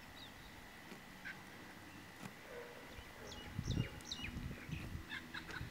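Birds chirping with quick, short high calls that thicken from about halfway on. A little past the middle come several low muffled thumps close to the microphone, the loudest sounds here.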